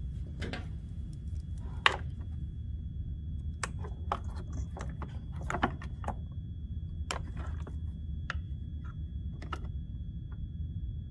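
Scattered sharp clicks and light rattling of wires, connectors and plastic as the self-propelled drive circuit board and its wiring are handled and pulled out of the mower's housing, the loudest click about two seconds in.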